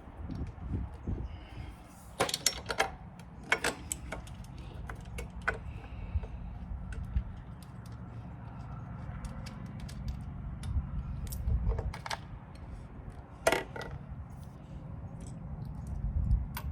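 Hand tools and small metal parts clinking and clicking at irregular moments while bolts on the motorcycle's bullet turn signal mounts are worked loose, with a low steady rumble underneath.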